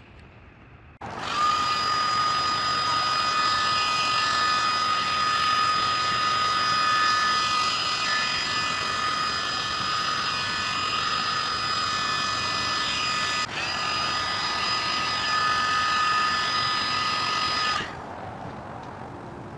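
Electric heat gun switched on about a second in and running steadily, a whining fan with rushing air, warming rubber flashing tape so it will stick in the cold; it dips briefly once and switches off near the end.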